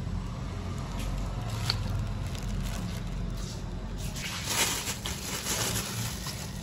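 A large cleaver cutting through a ripe papaya resting on a plastic bag, with one sharp tap about two seconds in. From about four seconds in the plastic bag crinkles. A low steady hum runs underneath.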